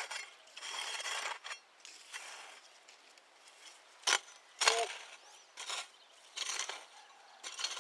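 Hoe blade scraping and chopping at the soil in irregular strokes, with two sharp knocks from the blade a little past the middle.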